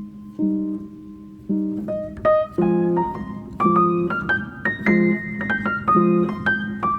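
Background music on a piano-like keyboard: repeated chords, then a quick run of notes climbing upward through the middle of the passage.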